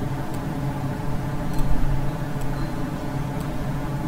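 Steady low electrical hum and hiss from the recording microphone, with four faint clicks of a computer mouse spread through it.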